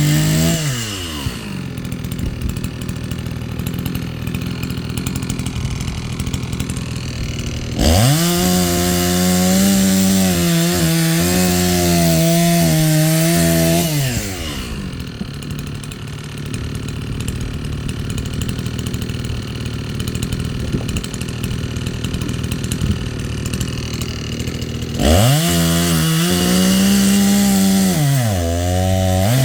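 Chainsaw cutting firewood: it idles, revs up to full speed about eight seconds in and holds for about six seconds, with the pitch dipping slightly under load, then drops back to idle before revving up again near the end.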